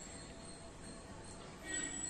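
Faint outdoor background with a thin, steady high-pitched tone; near the end a crow starts cawing.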